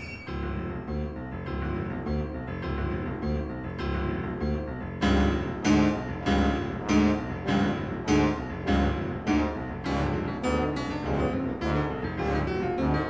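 Piano-led music over a pulsing low bass, with evenly spaced repeated notes about every half second that grow louder about five seconds in.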